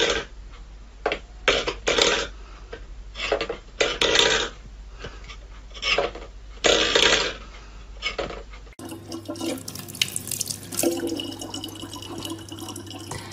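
A cat batting a stainless steel bowl on a wooden floor, the bowl clattering and scraping in a string of short bursts. About nine seconds in this gives way to a tap running a thin stream of water into a plastic bottle, a steady splashing.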